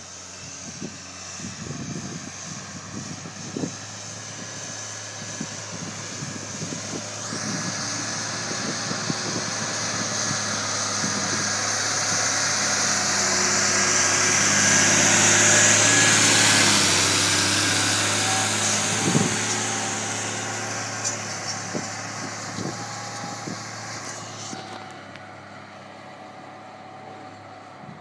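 Ford 8630 Powershift tractor's turbocharged six-cylinder diesel working under load pulling a reversible plough, with a high whine over the engine note. It grows louder as the tractor passes close by about halfway through, then fades as it pulls away, with a few short knocks along the way.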